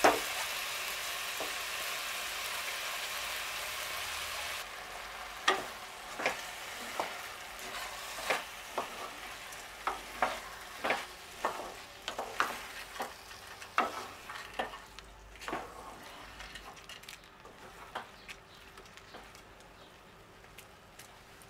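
Food frying in a pot, sizzling steadily. About five seconds in, the sizzle drops suddenly. Then a utensil scrapes and knocks against the pot again and again as the food is stirred, while the sizzle fades.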